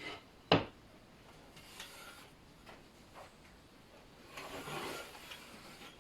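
A sharp knock of a piece of wood set down on a plywood sheet, then quieter scraping and a longer rubbing of wood on plywood as a straight edge is positioned for marking out a cut line.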